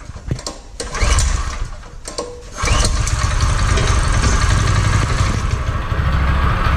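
Small four-stroke engine on a new carburetor being started with the choke on: it is cranked over a couple of times, catches about two and a half seconds in, and then runs steadily.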